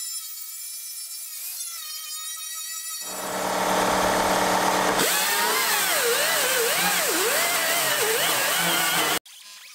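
Electric angle grinder whining steadily on the rusty steel rim of a wagon. Then a louder air-powered die grinder with a small abrasive wheel scours rust off the steel wagon bed, its pitch dipping and rising as it is pressed into the metal. The sound cuts off suddenly near the end.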